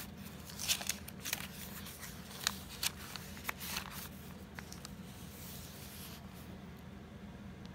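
Paper pages of a handmade journal being handled and turned by hand: scattered soft rustles and light clicks, thinning out over the last few seconds, over a low steady hum.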